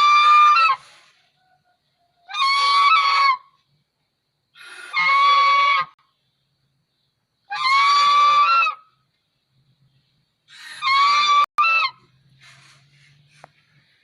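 White domestic goose honking: five loud, nasal honks about a second long each, one every two and a half seconds or so, the last one broken briefly in the middle, followed by softer faint calls near the end.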